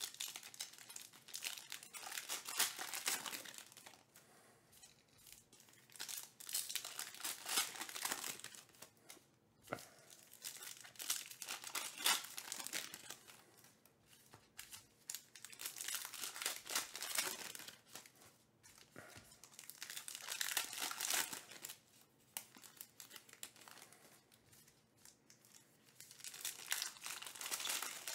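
Foil wrappers of 2022 Panini Elite Extra Edition baseball card packs being torn open and crinkled in the hands, pack after pack, in about six bursts a few seconds apart.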